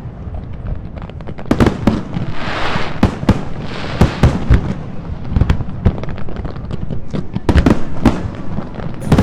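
Aerial fireworks exploding in quick, irregular succession: a steady run of sharp bangs, with a dense crackling shower about two and a half to four and a half seconds in.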